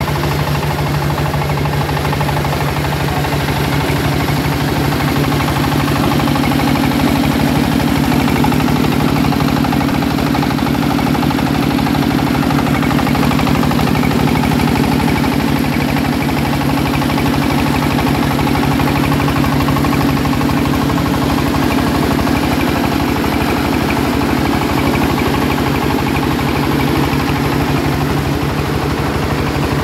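SJ12 corn sheller machine running steadily, a constant engine-driven drone with a steady low hum.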